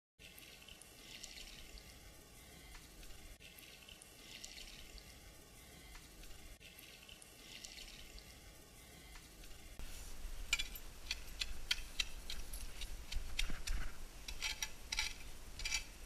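Water poured from a plastic watering can onto Postcrete mix around a concrete clothesline base, a steady splashing that swells about every second and a half. About ten seconds in it gives way to a louder run of sharp knocks and clicks over a low rumble.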